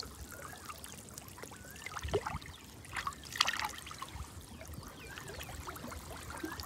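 Lake water trickling and splashing softly around a wader's arms as a hooked carp is worked free from tangled water-lily stems, with two slightly louder splashes about two and three and a half seconds in.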